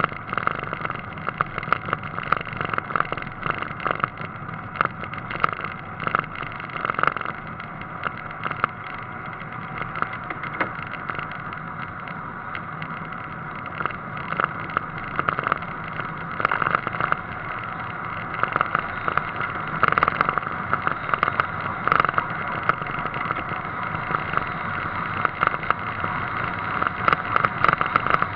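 A car driving along a road, heard from a camera mounted outside on its front wing: steady engine and road noise with frequent short crackles and knocks.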